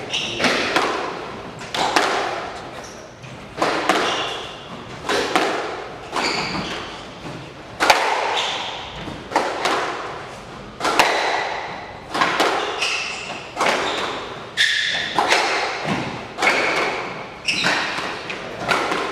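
Squash rally: the ball smacks off racquets and the court walls about once a second, each hit echoing in the court. Short high squeaks of players' shoes on the wooden floor come between the shots.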